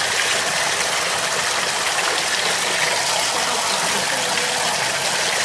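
Water from a garden hose gushing steadily into a plastic tub full of freshly caught fish and overflowing the rim.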